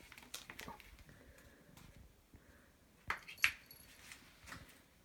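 Domestic cat making short chirping mews: a couple of faint ones early on, then two louder ones close together about three seconds in.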